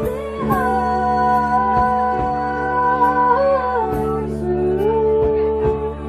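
Live band playing through a PA: electric guitar, bass and drums with regular drum and cymbal hits, under a voice holding long sung notes that glide from one pitch to the next.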